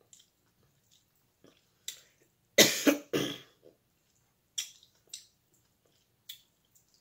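A woman coughs twice in quick succession about two and a half seconds in while eating food she calls hot, with a few short, sharp eating clicks before and after.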